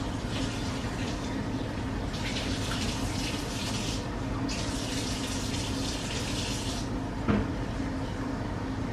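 Kitchen tap running into a sink, starting about two seconds in, breaking off for a moment, then running again until about seven seconds in. A single sharp knock follows. A steady low hum runs underneath.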